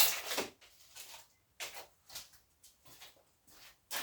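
Scrap electronics parts and copper pieces being handled and sorted. A loud clatter comes right at the start, then scattered lighter clicks and rustles.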